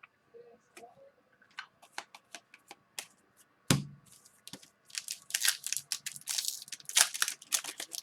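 Trading-card pack wrappers crinkling and tearing, with scattered light ticks of cards being handled. A single knock comes near the middle, and the crinkling grows busier over the last three seconds.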